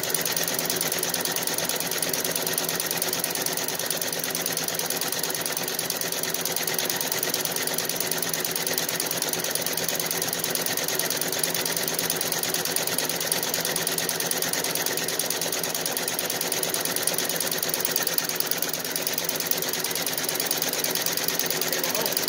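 Feiyue nine-needle embroidery machine running, its needle bar stitching at a fast, steady, even pace.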